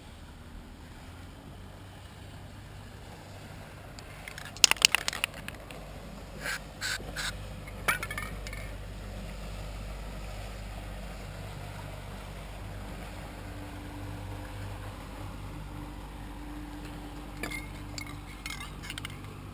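Small metal parts of a dismantled electric winch clinking and scraping together as they are handled, with a quick cluster of sharp clinks about five seconds in, a few single clinks soon after and more near the end. A steady low rumble runs underneath.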